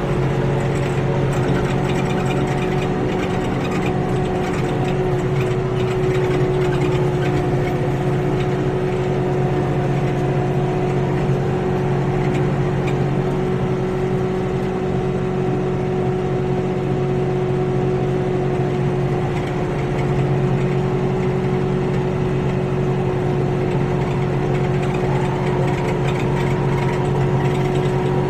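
Kioti NX6010 tractor's diesel engine running at a steady speed while it drives a bush hog rotary cutter through a clover plot, with a constant mechanical whine over the engine hum. A second, higher whine comes in near the end.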